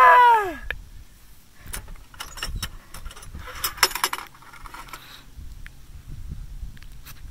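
A drawn-out groan that rises then falls in pitch, dying away within the first second; then clinks, rattles and rustling as a metal box is opened and its contents rummaged through.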